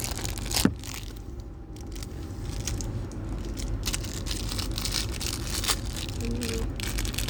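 Plastic packaging crinkling and tearing as a squishy toy is unwrapped, with one sharp click about two-thirds of a second in.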